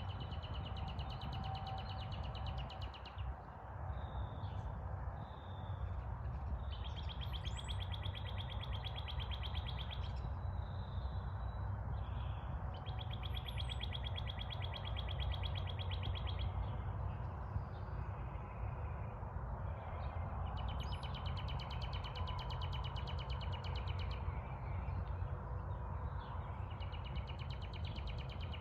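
Outdoor birdsong: one bird repeats a long, rapid, high trill about three seconds long every few seconds, and shorter chirps from other birds come in between. A steady low rumble runs underneath.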